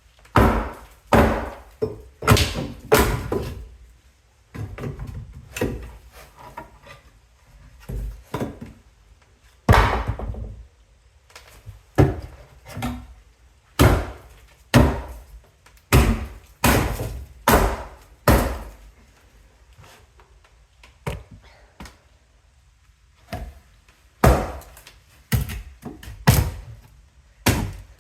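Repeated heavy blows and thunks on wooden floorboards and subfloor as termite-damaged flooring is broken up, coming at an irregular pace of about one a second, with a pause of a few seconds about two-thirds through.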